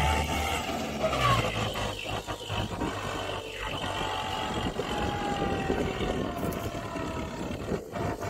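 Kubota MU4501 tractor's four-cylinder diesel engine running under load while it pulls a loaded trailer, with a steady whine held over it. A deep hum drops away about a second in as the tractor draws off.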